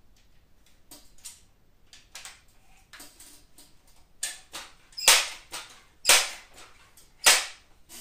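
A string of faint clicks, then three loud sharp clacks about a second apart near the end.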